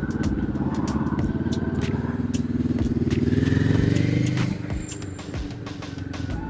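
Cruiser motorcycle engine running under way, its note climbing as it accelerates about three seconds in, then falling off sharply just after four seconds, with wind and road noise around it.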